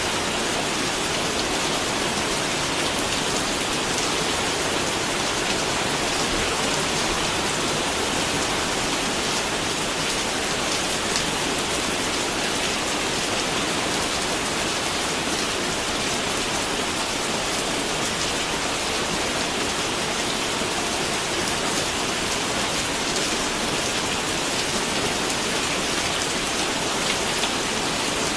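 Steady rain falling on a surface, an even hiss with scattered drops heard individually.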